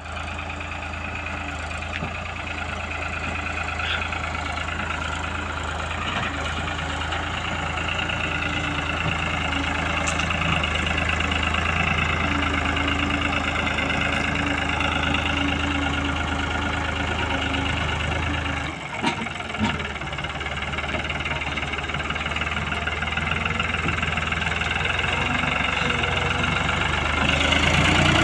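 New Holland 5500 tractor's diesel engine running steadily under a heavy load, hauling a trailer piled with sugarcane, and growing louder as the tractor draws near. About two-thirds of the way through, the sound dips briefly and two short knocks are heard.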